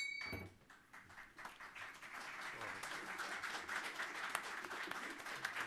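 Audience in a hearing room applauding: many hands clapping, starting softly about a second and a half in and building. A brief ringing tone dies away at the very start.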